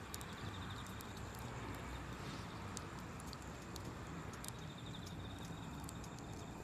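Wood campfire burning, with scattered sharp crackles and pops over a steady low rush. A faint insect trill comes and goes behind it.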